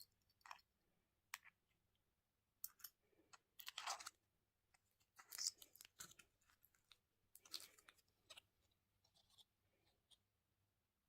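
Close-miked crunchy chewing and biting of desserts in short, irregular crunches with gaps between them, stopping about ten seconds in.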